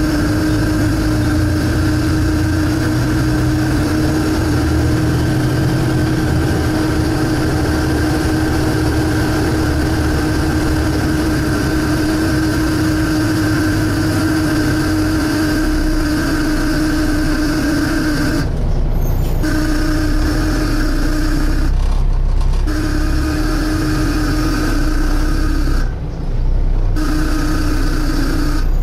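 Volvo B7TL bus heard from inside while on the move: low engine rumble under the loud, steady humming suction noise. Over the last ten seconds the suction hum cuts out for about a second at a time, every three to four seconds, while the engine rumble continues.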